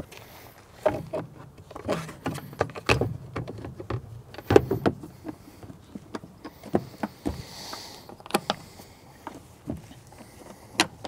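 Plastic engine cover of a small Johnson outboard being handled and fitted back down over the powerhead: a string of irregular knocks and clicks, the loudest about four and a half seconds in.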